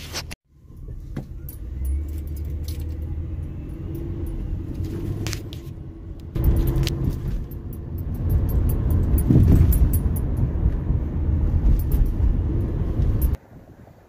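Engine and road rumble inside a moving car's cabin, with scattered light high-pitched clicks and jingling. It gets louder about six seconds in and cuts off suddenly near the end.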